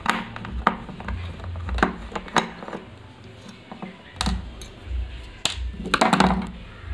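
Light clicks and taps of a screwdriver and small metal parts against an aluminium heatsink plate as a replacement vertical IC is positioned and screwed down, with a quick rattle of knocks near the end.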